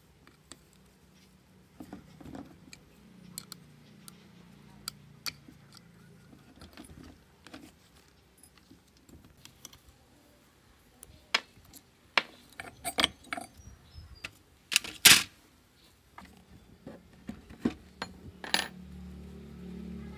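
Small metal parts and a screwdriver clinking and tapping as a chainsaw engine is taken apart: scattered light clicks, busier and louder past the middle, with the loudest clatter about fifteen seconds in.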